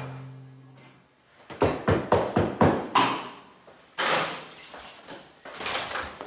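Knocks and clatter of things being handled and put away behind a bar counter. A quick run of sharp knocks comes first, then a sudden louder rattle about four seconds in that dies away over a second or so, with smaller knocks after it.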